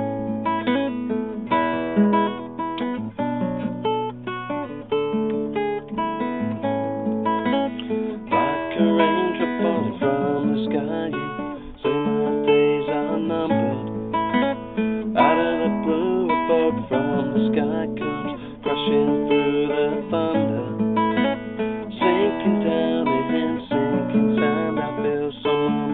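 Acoustic guitar played solo, an instrumental passage of plucked notes and chords, recorded on a mobile phone.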